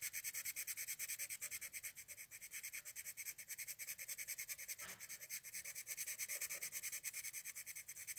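Pen tip scratching on paper in fast back-and-forth shading strokes, about ten a second in an even rhythm, as a dark area is filled in.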